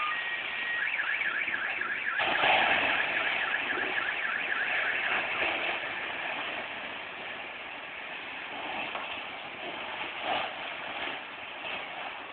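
A car alarm sounding, with a fast repeating warble in the first few seconds, over a steady rushing noise with scattered crackles.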